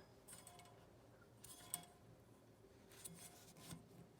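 Near silence, with a few faint short clicks and rubs from hands handling the ceiling fan's parts.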